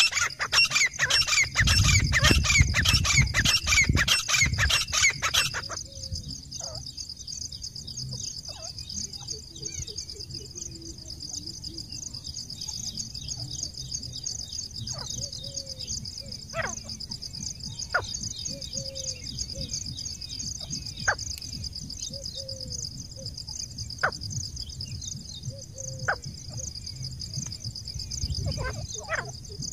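Grey francolin calling loudly in a rapid run of repeated, high, ringing notes, breaking off about six seconds in. After that a steady high-pitched buzz carries on, with short chirps every second or two.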